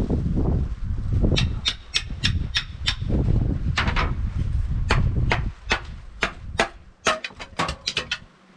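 Quick runs of sharp knocks, about three a second, over a low rumble.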